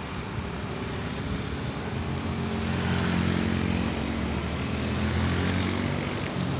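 A passing engine drone, a steady low hum that swells to its loudest a few seconds in and then eases off.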